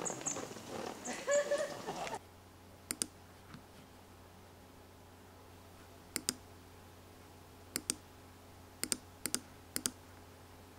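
Computer mouse clicking, about six clicks each heard as a sharp press-and-release pair, spread over the last eight seconds against a low steady room hum. Before that, about two seconds of outdoor ambience with a few high chirps, cut off abruptly.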